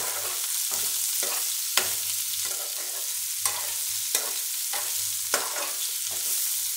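Diced raw mango frying in hot oil in a nonstick frying pan: a steady sizzle, with a spatula stirring and scraping through the pieces in repeated strokes and a few sharp taps against the pan.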